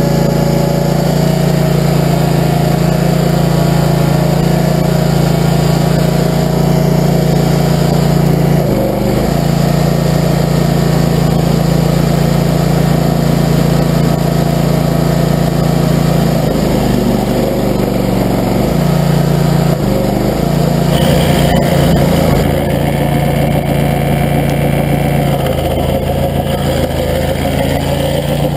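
Barreto tracked stump grinder's engine running steadily at high speed, its pitch dipping briefly about nine seconds in and a few times later on.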